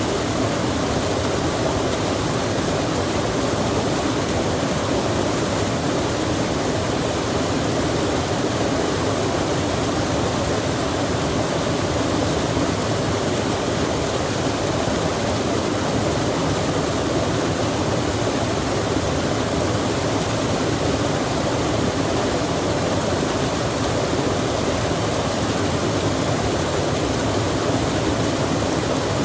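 Steady rushing of running water, an even, unbroken hiss without any other events.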